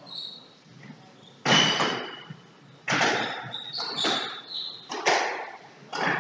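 Squash ball cracking off rackets and the court walls during a rally, four sharp hits that echo around the court, with short high squeaks of shoes on the wooden floor between them.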